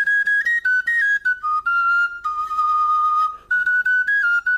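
Oja, the Igbo wooden flute, playing a solo melody of short separated notes, with one long held note in the middle.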